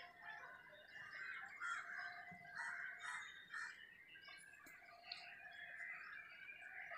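Fish pieces shallow-frying in hot oil in a pan: a faint, steady sizzle with irregular crackling.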